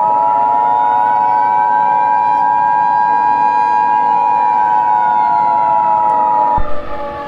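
Emergency Alert System attention signal, a steady two-tone beep, sounding over a siren that wails slowly up and then down. The two-tone beep cuts off abruptly near the end while the siren keeps falling.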